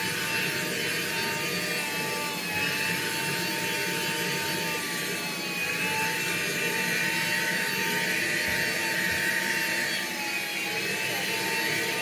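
Black & Decker cordless handheld vacuum running steadily, its motor giving a high, even whine over a rush of air, as it is worked over a carpet mat.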